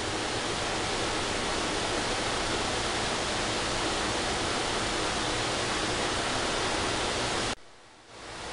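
Steady, even hiss of room tone and recording noise, with no distinct events. Near the end it drops away abruptly and then swells back up over about a second.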